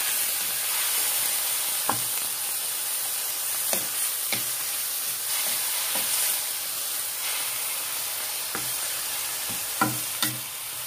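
Vegetables sizzling as they stir-fry in a wok, with a wooden spatula stirring them and knocking against the pan several times, most sharply near the end.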